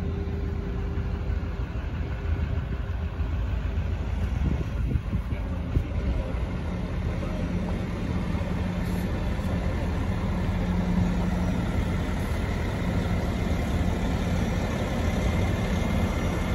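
A vehicle engine running steadily: an even, low hum with no change in speed.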